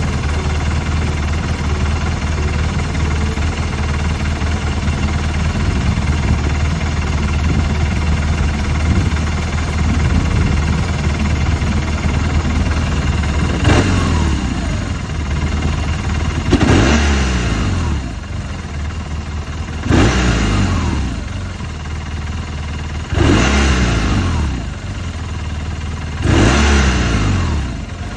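BMW R1200RT's boxer-twin engine idling, its idle questioned as possibly rough. It then blips the throttle five times about every three seconds, each rev falling quickly back to idle.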